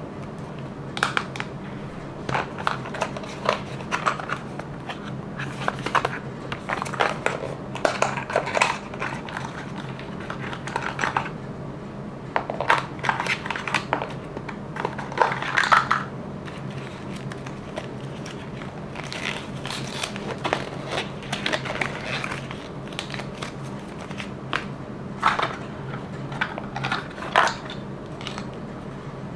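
Hands unboxing small plastic items: irregular bouts of crinkling packaging and sharp plastic clicks and clinks, over a steady low hum.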